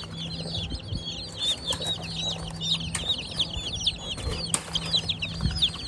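A group of young chicks peeping nonstop, with many short, high, shrill cheeps overlapping. A few sharp knocks and a low steady hum sound underneath.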